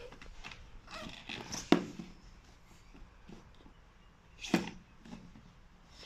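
Plastic pieces of a toy makeup set being handled: light rustling and tapping, with two sharp clicks, one a little under two seconds in and another about four and a half seconds in.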